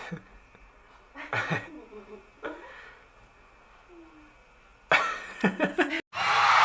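A few short bursts of laughter and coughing, the loudest cluster about five seconds in. Near the end the sound cuts off and a loud, steady rushing noise starts suddenly.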